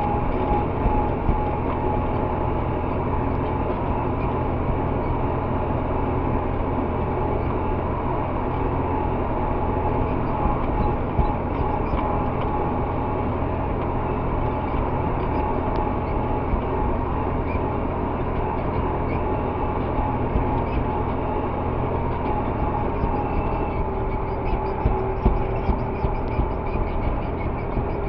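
Tractor engine running steadily as the tractor drives along, heard from inside the cab, with a steady high whine over the low drone and some light rattles near the end.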